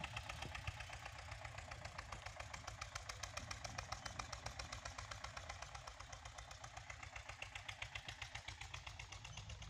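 Eicher 241 tractor's single-cylinder diesel engine running at a steady working speed while it pulls a seed drill, heard faintly as an even, rapid chugging of about a dozen beats a second.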